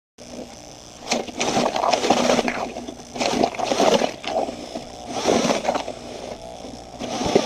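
Wet Quikrete concrete resurfacer being mixed in a bucket: irregular bursts of wet sloshing and scraping, about four surges in all.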